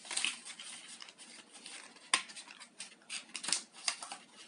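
Hands handling small plastic items and packaging: rustling with a series of sharp clicks and taps, the loudest about two seconds in.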